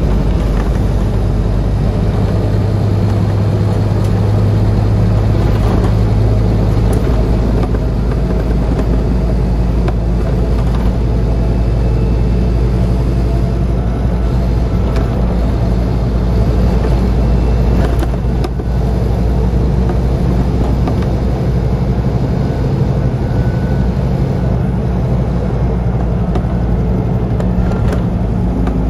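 Scania CN230UD OmniCity double-decker bus's rear-mounted five-cylinder diesel engine running hard under load, heard from inside the back of the lower deck. The engine note shifts about a quarter of the way in, and again near the end.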